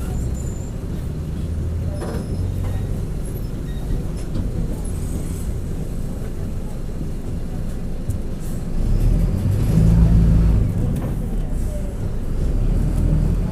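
Mercedes-Benz OF-1722M city bus under way, its front-mounted diesel and drivetrain giving a steady low drone that swells louder for about two seconds about two-thirds of the way through. The differential growls, the sign of a worn differential.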